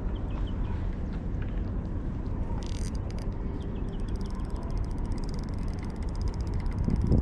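Wind buffeting the microphone in a steady low rumble, with a surge near the end. From about three seconds in there is a rapid, fine, high ticking.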